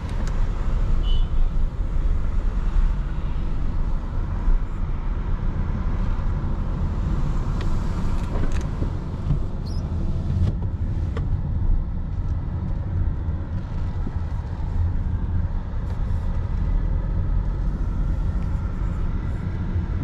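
Audi A3 30 TFSI driving slowly, heard from inside the cabin: a steady low engine and tyre rumble, with a few light clicks around the middle.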